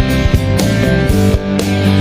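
Instrumental rock music with guitar and a steady beat.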